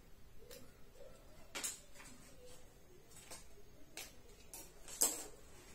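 Scattered sharp clicks and snips as price tags are cut off new clothes with scissors, the loudest about five seconds in.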